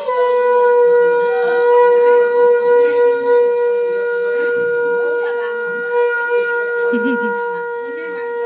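Conch shell (shankha) blown in one long, steady note that slides up slightly as it starts. It is sounded during Hindu wedding rituals.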